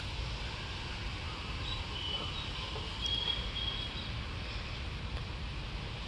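Rural outdoor ambience: a steady low rumble with a few faint, thin high chirps about two to four seconds in.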